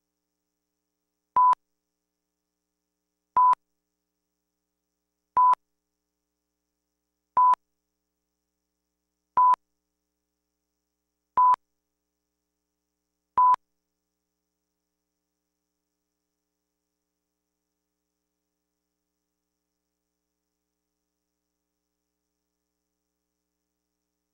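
Broadcast line-up test tone accompanying colour bars: a 1 kHz beep of about a third of a second, repeated every two seconds. Seven beeps, then the tone stops about halfway through.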